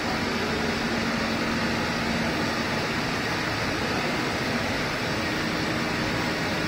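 Steady machine noise from a roll-to-roll film coating and drying line running: an even drone with a faint low hum whose pitch shifts slightly partway through.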